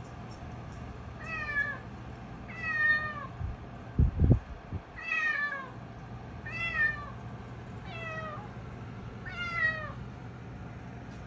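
A cat meowing repeatedly: six short, high meows, each falling in pitch, about one every second and a half. A dull thump comes about four seconds in.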